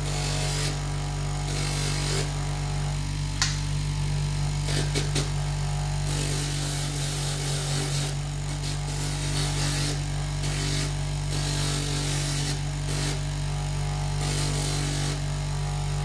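Bench grinder motor running steadily with a stone pressed against its spinning 320-grit sanding pad, the grinding hiss swelling and fading as the stone is worked against the pad. A single sharp tick about three seconds in.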